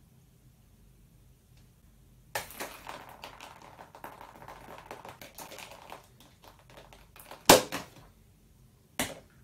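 Scratchy rubbing and scraping as grey paint is smeared across a painted banner on the floor, then a loud sharp clatter about seven and a half seconds in as a small paint can is dropped onto it, and a lighter knock near the end.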